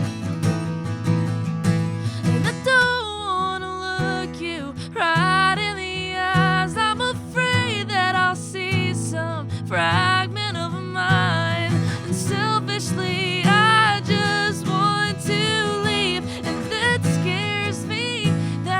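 Indie band playing a passage without sung lyrics: a steady acoustic guitar and low accompaniment, with a wavering, sliding lead melody line over it from a few seconds in.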